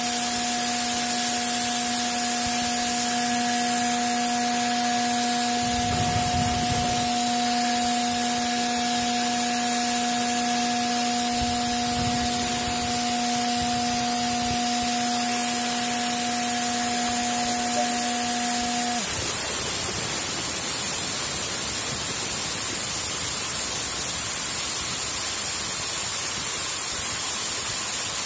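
Elgi air compressor running at its intake valve: a loud, steady hiss of air with a steady hum under it. About two-thirds of the way through, the hum cuts off suddenly as the intake valve closes and the compressor unloads, and the hiss carries on.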